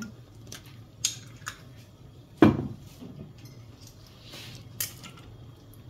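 Kitchen clatter on a counter: a few light clicks and clinks, with one solid knock about two and a half seconds in.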